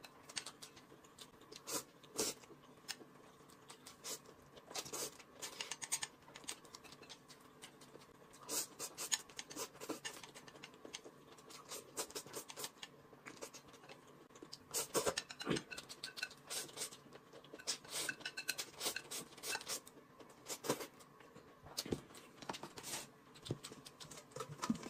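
Close-up eating sounds: noodles being slurped and chewed, with chopsticks clicking and scraping against a plate. Irregular short clicks and taps throughout.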